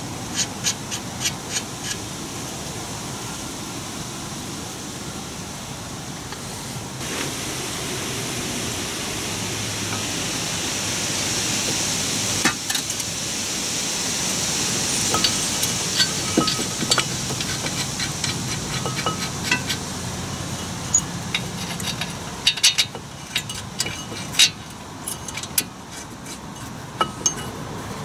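Light metallic clinks and clicks as steel brake parts are handled: lug nuts threaded onto the wheel studs to hold the new rotor, then the caliper bracket set against it and fitted. The clicks come in scattered runs, busiest at the start and through the last few seconds, while a soft rushing noise swells and fades in the middle.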